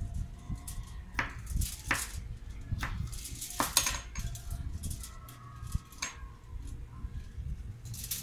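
Kitchen knife slicing a bell pepper on a plastic cutting board: a few sharp, separate knocks of the blade against the board, spaced about a second apart.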